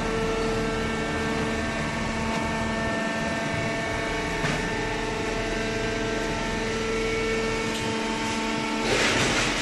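Horizontal hydraulic baling press running: a steady hum from its motor and hydraulic pump, with tones that shift as the load changes. There is one click about four and a half seconds in and a short burst of hiss near the end.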